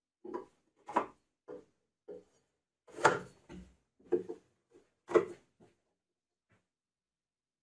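Metal tubes being pushed into drilled holes in wooden wall uprights: about a dozen short knocks and scrapes of metal against wood, stopping about six seconds in.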